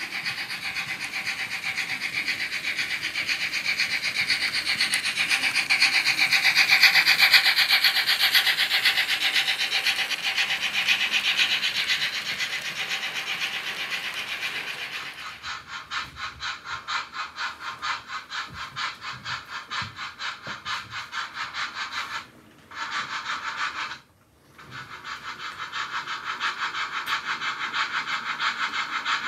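Märklin model trains running on the track: a rumble and rattle of freight wagons rolling past close by swells and fades, then a steady, fast rhythmic clicking as another train runs, cut off briefly twice near the end.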